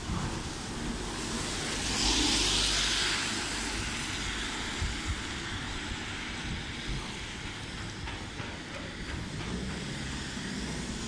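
Traffic on a wet street: car tyres hissing on wet asphalt, swelling loudest as a vehicle passes about two seconds in, over a low steady rumble.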